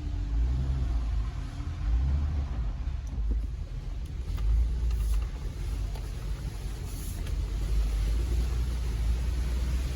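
Jeep Gladiator Rubicon's 3.6 Pentastar V6 running at low speed as the truck creeps along a dirt trail, heard from inside the cab as a steady low rumble that swells and eases.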